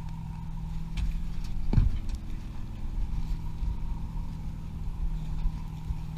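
A pontoon boat's hinged seat lid is lifted open, with light knocks about a second in and a short creak falling in pitch near two seconds in. A steady low engine hum runs underneath.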